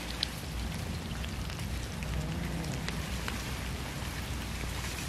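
Cats eating raw fish close to the microphone: wet chewing and smacking with many small sharp clicks over a steady low rumble.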